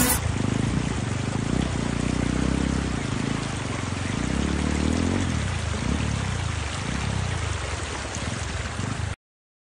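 Hero Impulse motorcycle's single-cylinder engine running as it is ridden off-road, under a steady rushing noise. The engine pitch drops about five seconds in, and the sound cuts off suddenly near the end.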